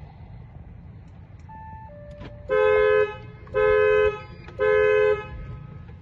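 Dual-tone car horn sounding three short honks about a second apart, each about half a second long. Two short beeps falling in pitch come just before them.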